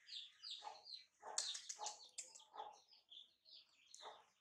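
Faint bird chirping: a quick run of short, high, falling peeps, several a second, with a few lower calls mixed in.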